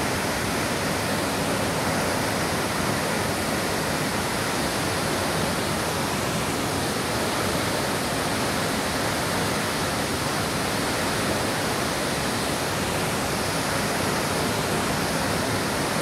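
Steady, unbroken rush of a large waterfall, the Velo de Novia falls at El Chiflón, the biggest of the cascades there.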